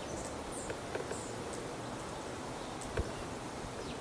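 Steady outdoor background noise with faint, short high chirps in the first second or so and a few small clicks. A single sharp thump comes about three seconds in.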